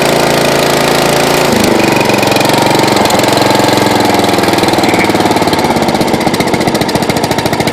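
13.5 hp Briggs & Stratton engine of an MTD lawn tractor running on its first cold start of the year. About a second and a half in, its speed drops, and it settles into a slower, uneven idle where the separate firing pulses can be heard.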